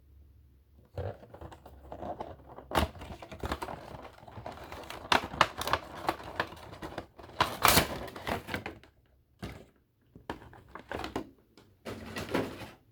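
Handling noise from an unboxing: a run of quick clicks, taps and light rustles, with a short pause about nine seconds in before it resumes.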